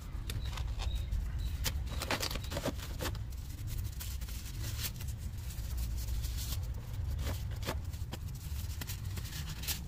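Thin disposable gloves being pulled onto the hands: irregular crinkling, rustling and snapping of the thin glove material.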